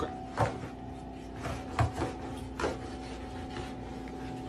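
A flat mop poked under a refrigerator, scraping across the wooden floor and knocking about four times, over a steady hum.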